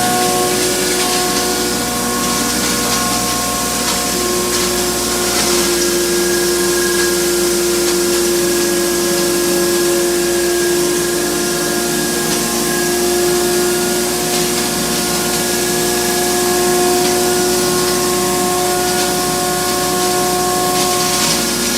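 Corn husk grinding machine running steadily: a constant hum of several steady tones over a loud airy hiss, the tones shifting slightly about five seconds in.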